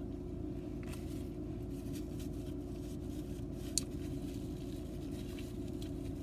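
Steady low hum inside a parked car's cabin, with faint chewing and napkin rustles from someone eating a chicken sandwich, and one sharper click a little before four seconds in.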